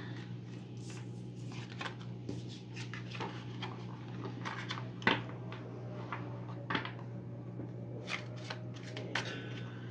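Tarot deck being shuffled by hand: a run of short, irregular card flicks and rustles, over a steady low hum.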